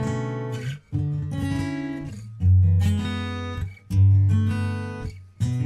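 Background music: an acoustic guitar strumming chords, a new chord about every second or so, the loudest about halfway through.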